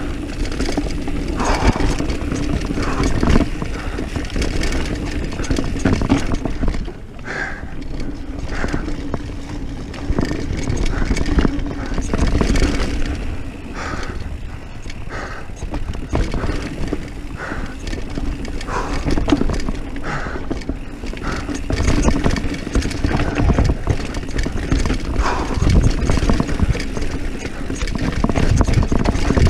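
Diamondback Mission 1 mountain bike running fast down a dirt trail. Wind buffets the microphone, and the bike rattles and knocks with tyre and frame noise over the bumps.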